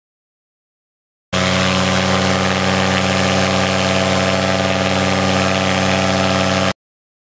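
An engine running steadily at an even idle. It cuts in abruptly about a second in and cuts off just as abruptly near the end.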